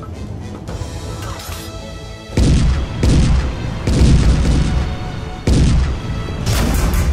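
A series of heavy booms from tank gunfire and shell explosions, each with a long low rumbling decay, starting about two and a half seconds in and coming roughly a second apart, over dramatic background music.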